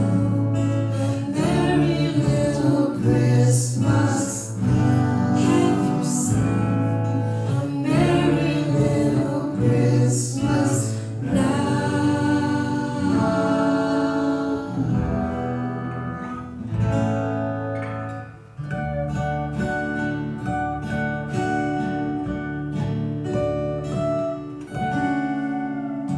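Acoustic guitars with a man singing a slow Christmas ballad. About halfway through, the voice drops out, leaving picked guitar notes and ringing chords that close the song.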